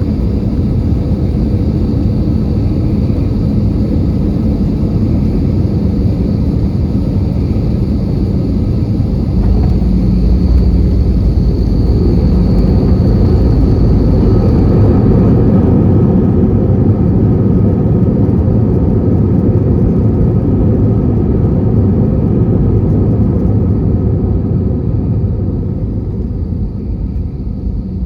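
Airbus A320 cabin noise: a steady rumble of the jet engines and rushing air, swelling about ten seconds in and easing off near the end.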